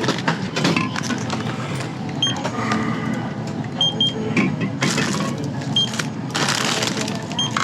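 Checkout barcode scanner beeping as items are rung up at a store counter: short single beeps a second or two apart, with a quick double beep near the middle, among the rustle of packaging and bags.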